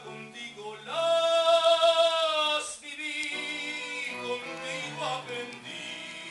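Male singer in a classical, operatic style holding one long loud note about a second in, then carrying on more softly, over a live trio of violin, cello and piano.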